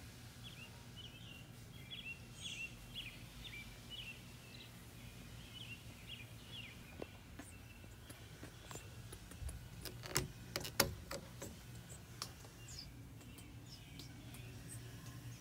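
Birds chirping over a low steady hum for the first few seconds, then a string of clicks and knocks from a wooden door and its metal latch being handled, sharpest about ten seconds in.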